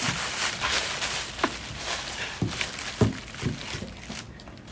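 Scattered light knocks and rustles at irregular intervals, a second or so apart, from handling the box and packaging of a pair of motorcycle slip-on mufflers.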